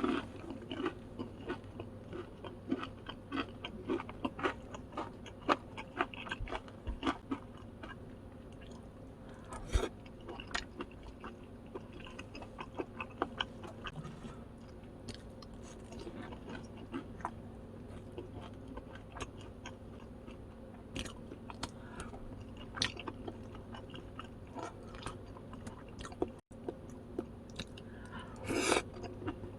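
Close-miked eating: a steady run of chewing and biting with short crunches, over a faint steady hum, and a longer noisier burst near the end.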